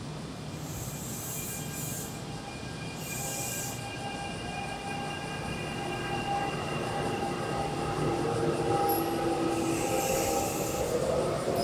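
Kintetsu commuter electric train running along the platform track, its wheels squealing in several high tones that waver and climb near the end, growing louder as it passes close by. Short hisses come about a second in, around three seconds in and near the end.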